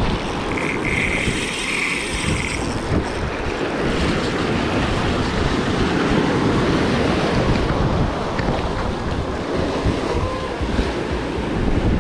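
Surf washing over the shallows with wind buffeting the microphone. In the first couple of seconds a spinning reel gives a brief high buzz as it is worked under load.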